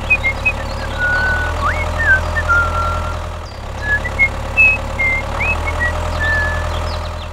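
Tractor engine running steadily with a low, even hum, and short chirping whistles of birds over it. The engine sound dips briefly about halfway through.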